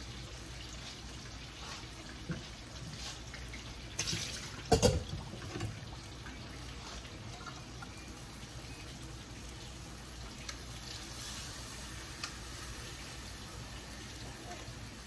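A pot of rice and chicken cooking on the stove, with a steady bubbling hiss as the liquid cooks down. A few knocks against the pot about four to five seconds in, the loudest near five seconds.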